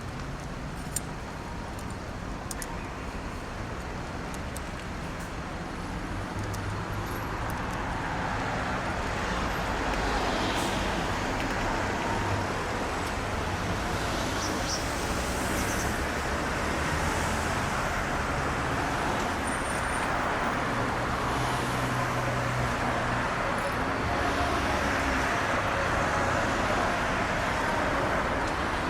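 Steady road traffic noise that swells louder after several seconds, with a few faint, short high chirps over it.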